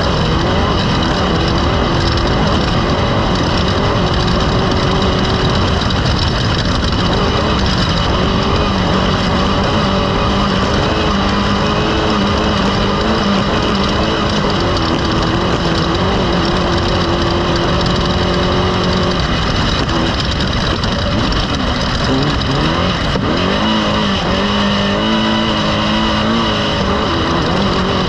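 Off-road race vehicle's engine running hard under way, its pitch wavering up and down as the throttle changes, over a steady rough rattle and rush of noise.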